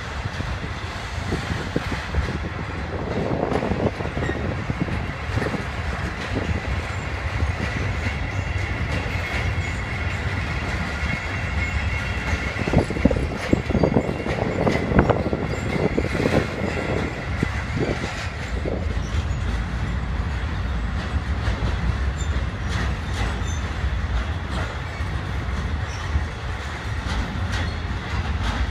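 Freight train of covered goods wagons rolling steadily past: a continuous low rumble of wheels on rail with clickety-clack as wheelsets cross rail joints, bunched into clusters, and a thin high wheel squeal through the middle for about ten seconds.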